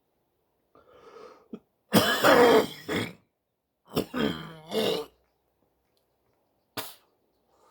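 A man coughing and clearing his throat hard: a loud harsh bout about two seconds in, then a second bout about four seconds in.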